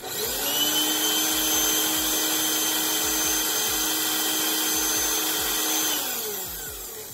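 Small corded Dirt Devil handheld vacuum switched on, its motor spinning up quickly to a steady whine. It runs for about six seconds, then is switched off and winds down, its pitch falling as it fades.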